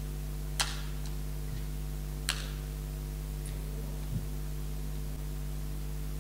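Steady electrical mains hum on the microphone line, broken by two sharp clicks, about half a second and two seconds in, and a faint knock near the end as items on the altar are handled.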